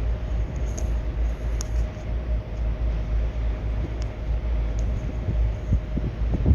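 A ferry's engine running steadily, with a faint steady whine, under heavy wind buffeting on the microphone.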